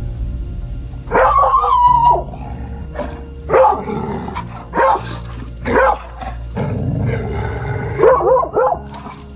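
Dog barking: a long drawn-out bark about a second in, then single barks about a second apart, and three quick barks near the end, over background music.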